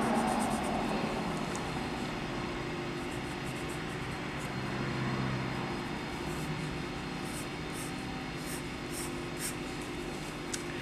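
Colored pencil stroking across drawing paper, light irregular scratching, over a steady background hum and hiss.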